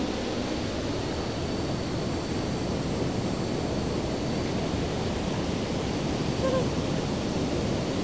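Steady rush of water pouring over a waterfall, an even hiss and roar with no break.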